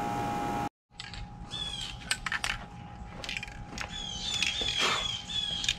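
Aerosol spray-paint can hissing in short bursts, with a few light clicks. Birds chirp in the background in runs of short falling notes.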